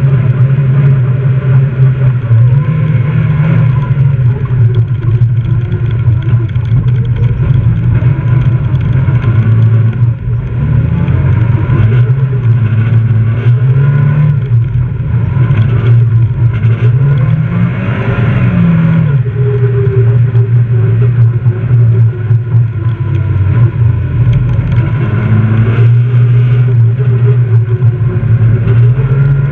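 Fiat rally car's engine heard from inside the cabin, run hard at high revs with the pitch stepping up and down through gear changes and lifts. One big climb and drop comes a little past halfway.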